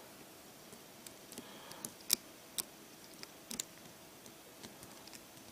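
Lock pick clicking against the pin tumblers inside a rusty brass Abus 85 padlock as it is picked: a handful of small, irregular clicks, the sharpest about two seconds in.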